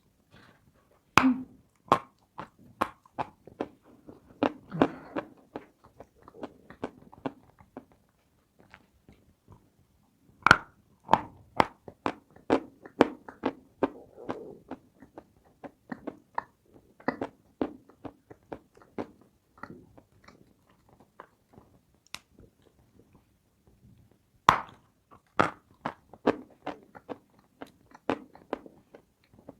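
Close-up crunching of dry edible clay pieces shaped as cookies. There is a loud sharp bite about a second in, another about a third of the way through, and a third near the end. Each bite is followed by a run of crisp cracking chews that fade before the next bite.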